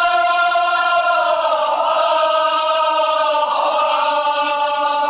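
Male voices chanting a Kashmiri marsiya (Muharram elegy) in unison, holding long drawn-out notes that shift in pitch a couple of times.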